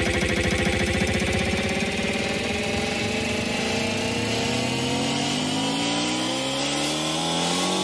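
Hard techno build-up: a fast pulsing rhythm fades over the first two seconds into a long rising, engine-like sweep of several pitched layers. The deep bass drops out near the end.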